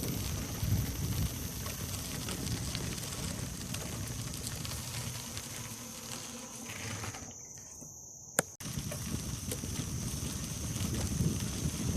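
Insects making a steady high-pitched drone over a low rumble of wind on the microphone. The sound drops out for about a second near the middle and comes back with a sharp click.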